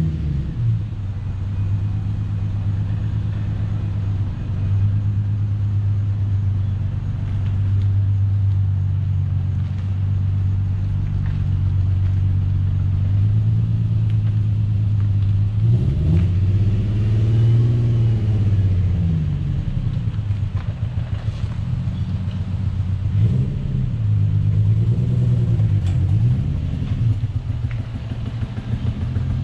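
Infiniti G35's VQ35DE V6 engine under way, running steadily at first. About halfway through it revs up and back down, and it does so a few more times near the end.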